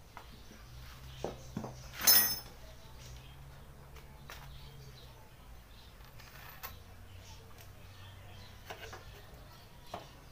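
Scattered light metal clicks and knocks from a scooter's rear shock absorber and its mounting hardware being handled into place, with one louder ringing metallic clink about two seconds in.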